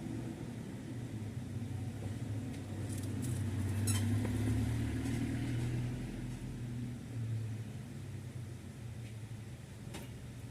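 Toyota Corolla GLI's 4A-FE four-cylinder engine idling with a steady low hum, growing louder for a couple of seconds near the middle, with a few light clicks.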